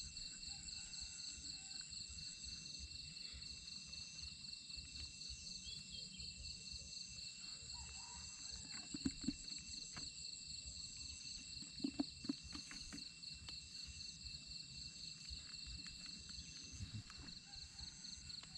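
Evening insect chorus: several insects trill steadily at a high pitch, one of them pulsing a little faster than once a second. Two pairs of short, soft knocks come about halfway through.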